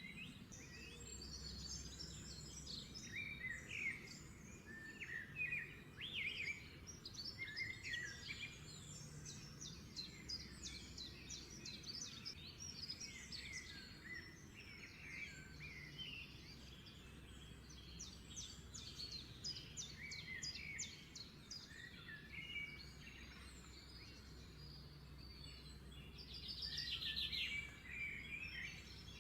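Several small birds chirping and singing over a low steady hum, with a fast trill near the end.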